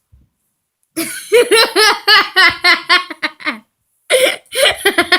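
A person laughing hard: two bouts of quick, repeated laughs, with a short pause between them.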